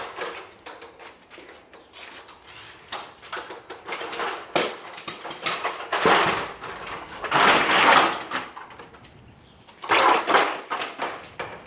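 Something being pulled off and handled during garage door opener wiring: irregular scraping and rustling, loudest about six and eight seconds in and again near ten seconds.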